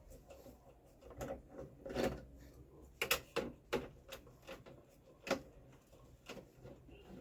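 Irregular clicks and knocks of plastic and metal parts being handled as a Canon LBP 2900 laser printer is taken apart, with the loudest cluster of sharp knocks a little after three seconds in and another single knock about five seconds in.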